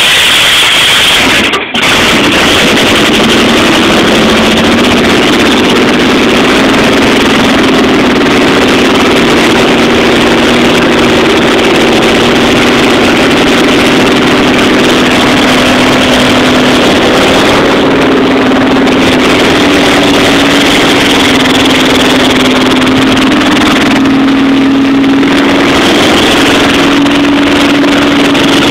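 Chevy 350 small-block V8 on open tube headers running loud and steady, just caught on its first start after a rebuild. It drops out for an instant about two seconds in, then holds steady.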